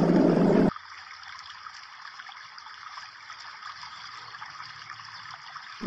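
A louder noisy sound cuts off abruptly under a second in, leaving a faint steady hiss.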